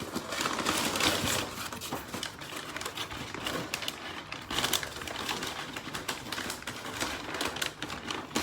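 Rustling, crinkling and clicking of a shipping package and its wrapping being worked open by hand, in a dense, continuous run of quick crackles.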